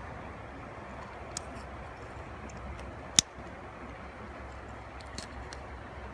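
Steady hiss of flowing creek water, with a few light clicks and one sharp click about three seconds in as the caught bass and tackle are handled.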